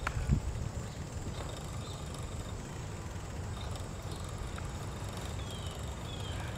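Steady low rumble of wind on the microphone and bicycle tyres rolling on asphalt during a ride, with a short knock near the start.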